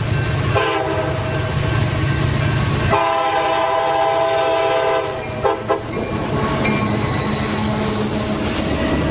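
Diesel locomotive air horn sounding two long blasts and then two short toots, over the low rumble of the locomotive's engine.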